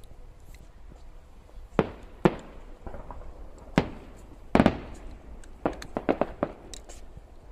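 Fireworks shells bursting: a string of sharp bangs beginning about two seconds in, with a quick run of about five bangs near the end.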